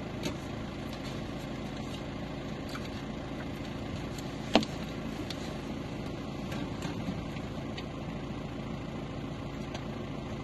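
Car engine idling steadily, heard from inside the stopped car, with one sharp click about halfway through.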